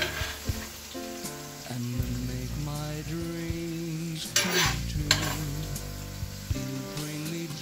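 Minced meat sizzling in oil in a frying pan, with the clink and scrape of spoons against the pan a few times as the meat is scooped out, over soft background music with sustained notes.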